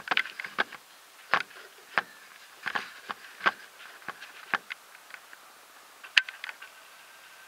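Irregular clicks and knocks of a camera being handled and set in place, about a dozen sharp ticks unevenly spaced, over a faint steady high tone.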